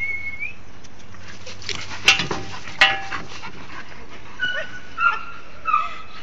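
Bull terrier whimpering. A short rising whine opens, then from about four and a half seconds in come brief high whimpers, roughly two a second. Two sharp knocks fall near the middle.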